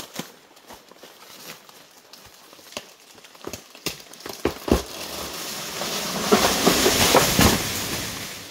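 Footsteps crunching on dry, fallen banana leaves, then a loud rustling swell that builds from about halfway, peaks a second or so before the end and fades.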